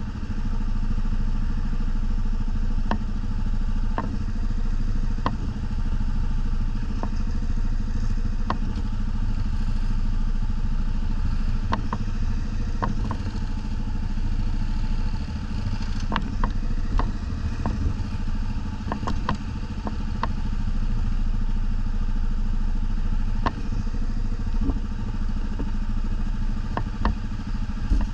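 ATV engine running steadily at low revs, with scattered sharp knocks and clatters.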